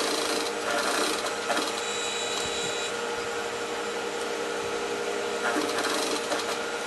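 Sewing machine running steadily, stitching a pocket facing onto a pair of pants with regular thread.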